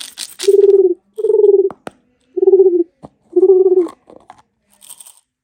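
Four short, low hooting tones of the same pitch, each falling slightly, about a second apart, with faint clicks between them.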